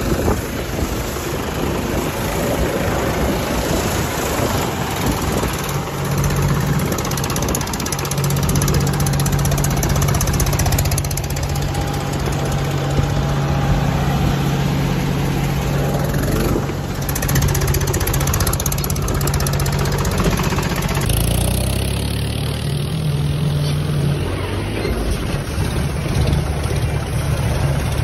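Diesel engines of a John Deere 5036 and a Mahindra 265 DI XP tractor running under load as the two pull against each other on a chain in a tug-of-war. A steady low engine drone, which changes character about 21 seconds in.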